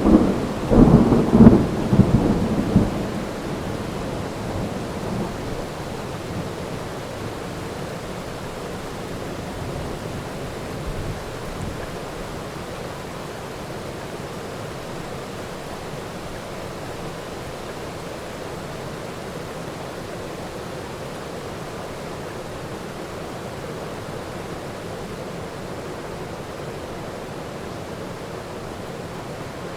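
Thunderclap rumbling and crackling loudly in the first three seconds of a heavy rainstorm, fading into steady rain, with a fainter rumble of thunder about eleven seconds in.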